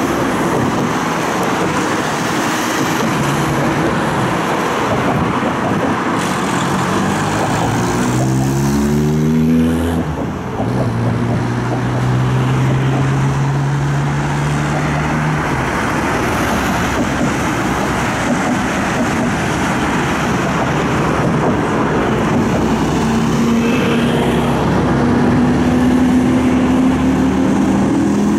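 Busy road traffic passing close by: a steady rush of tyre and engine noise. About eight seconds in, an engine rises in pitch as a vehicle accelerates, and another climbs near the end.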